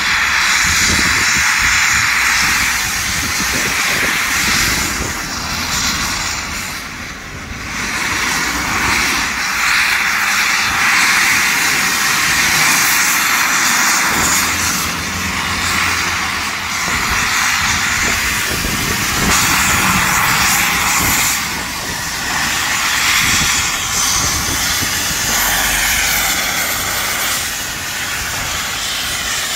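LMS 'Black 5' steam locomotive 45212 hissing loudly as it blows off clouds of steam while moving slowly through the yard. The hiss comes in long surges a few seconds apart, with short dips between them.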